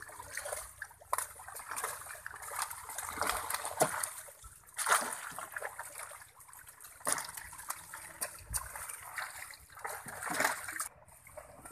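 Water splashing and dribbling as netted fish thrash in a seine net drawn tight in shallow pond water and men work the net by hand: a string of short, sharp splashes over a steady wash of water.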